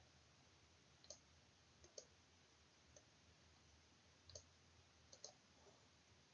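Faint, scattered clicks of a computer's input controls over quiet room tone: about eight clicks, some in quick pairs.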